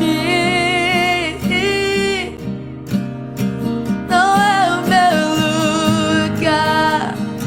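Christian worship song: long held, wordless-sounding sung notes in two phrases, with a short break between them, over a steady acoustic guitar accompaniment.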